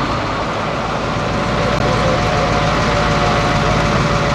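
A large vehicle engine running steadily, an even low rumble with a faint steady hum over it.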